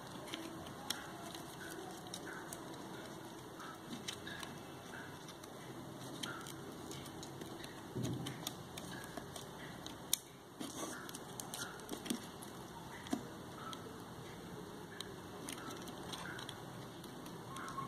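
Small camera parts and tools being handled, making scattered small clicks and taps, with a louder knock about eight seconds in and a sharp click about ten seconds in.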